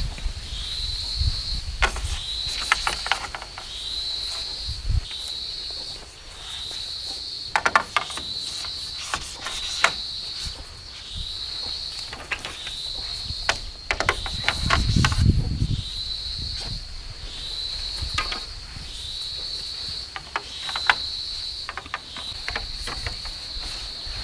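An insect calling in a steady repeating pattern: a high buzzing call about a second long, repeated roughly every second and a half. Over it come scattered clicks and knocks of bamboo poles being handled and tied.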